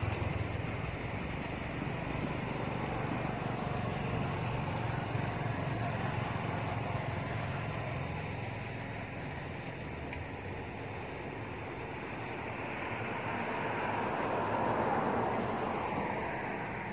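Steady background rumble of distant traffic that swells and fades about three-quarters of the way through, with a thin steady high whine above it.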